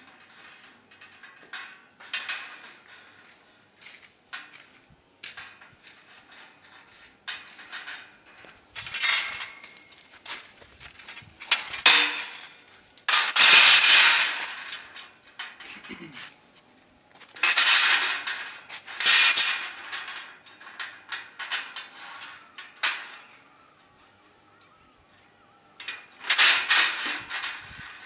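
Long steel bars clanking, rattling and scraping against one another as they are shifted and laid side by side, in bursts of clatter a few seconds apart with lighter taps between.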